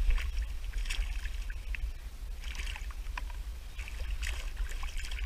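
Rainbow trout splashing in a landing net held in the water: a few short, irregular splashes over a steady low rumble.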